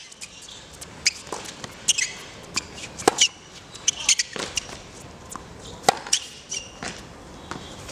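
Tennis rally on a hard court: a tennis ball struck by rackets and bouncing, as sharp irregular pops, with shoes scuffing and squeaking on the court surface between shots.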